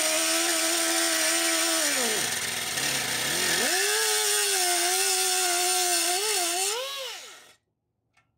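Small high-speed grinder with a cut-off wheel cutting through a steel suspension bracket tab: a steady high whine with a harsh hiss. The whine slows sharply about two seconds in and picks back up, then stops abruptly near the end.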